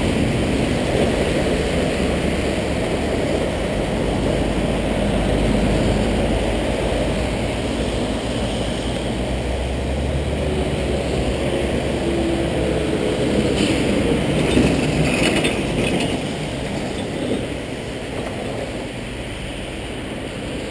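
Road traffic passing through a wet intersection: engines rumbling and tyres hissing on the wet road. A short run of clicks comes about three-quarters through, and the traffic noise eases off near the end.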